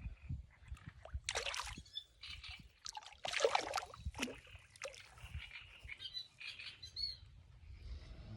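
Water splashing in irregular bursts at a creek, with a few brief bird chirps.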